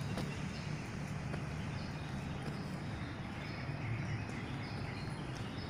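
Outdoor ambience: a steady low rumble with faint high chirps about once a second.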